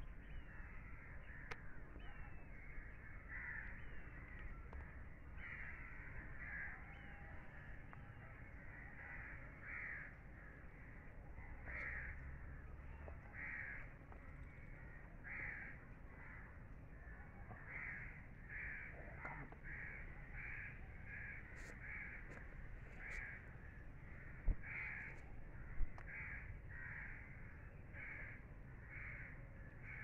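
Birds in the background calling over and over, short calls coming about once or twice a second. Two sharp knocks stand out about three-quarters of the way through.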